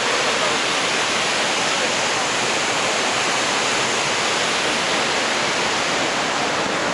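Waterfall: a heavy, steady rush of falling water, even and unbroken.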